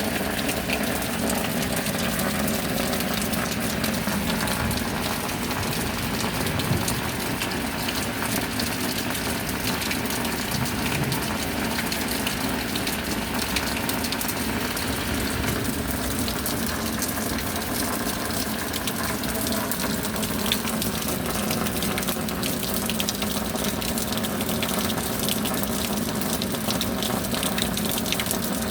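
Rain falling steadily as an even, constant wash of rushing water, with no breaks.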